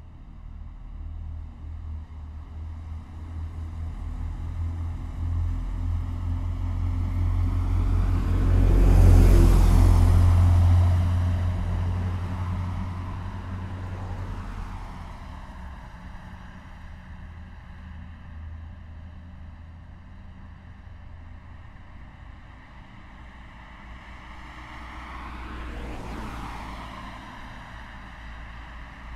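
Road traffic: a steady low rumble of passing cars, with one vehicle passing close, building to its loudest about nine seconds in and then fading away. A second, quieter vehicle passes a few seconds before the end.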